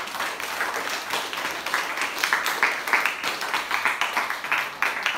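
A classroom of students and their teacher clapping their hands together: a dense, fast patter of many claps.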